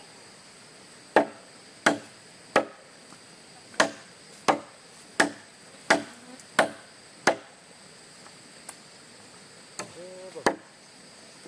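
A blade chopping into wood, as when a wooden stake is cut to a point. There are nine sharp strikes about 0.7 s apart, a pause, then two more strikes near the end.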